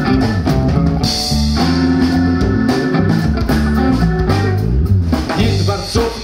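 Live rock band playing an instrumental passage: guitar, drum kit and keyboard together, with a brief drop in loudness just before the end.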